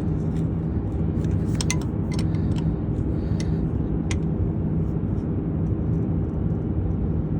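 A truck engine running steadily, a low even hum. A few light metallic clicks come over it, from a wrench snugging up the new PTO pressure switch.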